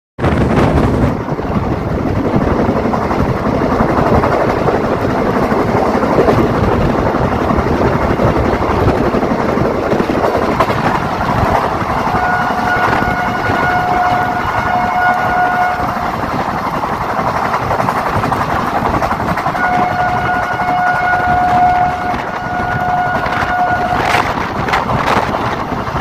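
Express train running at about 110 km/h, heard from an open coach door: a steady rush of wheels on rail and wind. The WAP-1 electric locomotive's horn sounds two long blasts, one about halfway through and another near the end.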